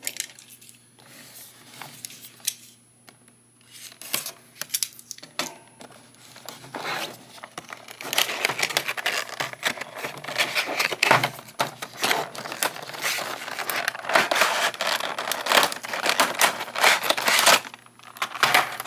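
Cardboard collector-figure box being opened and its plastic packaging handled: crinkling, rustling and scattered clicks, sparse at first and busier and louder over the second half.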